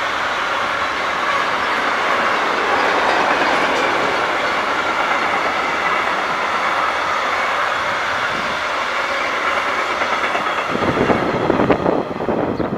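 Freight train of hopper wagons rolling past at speed: a steady rumble of wheels running on the rails. Near the end the noise grows louder and rougher as the last wagon goes by.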